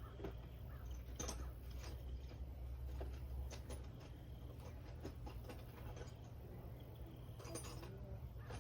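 Scattered light clicks and taps of hand tools and small metal parts being handled during engine work, over a steady low hum.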